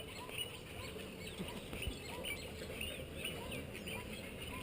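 Birds chirping: a quick, steady run of short high chirps, several a second, over faint outdoor background noise.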